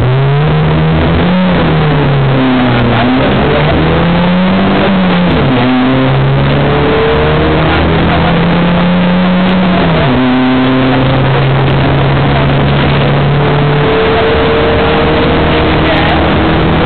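Rally car engine heard from inside the cabin, accelerating hard through the gears: the engine note climbs steadily and drops sharply at each upshift, several times over.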